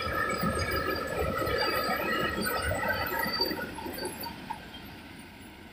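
Indian Railways freight wagons rolling past: wheels rumbling and clattering on the rails under a steady high metallic ringing squeal. The sound fades from about three and a half seconds in, as the brake van at the tail of the train goes by.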